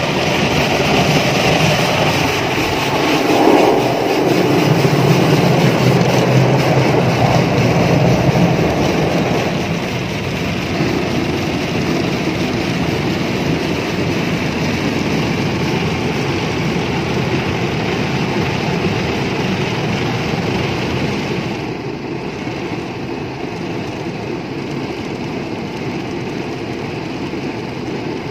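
Automatic car wash heard from inside the car: big spinning wash brushes scrubbing across the windscreen and body under spraying water, a steady rumbling, swishing wash noise. It is loudest in the first nine seconds or so, then eases off, and turns duller at about twenty-two seconds as the brush moves aside.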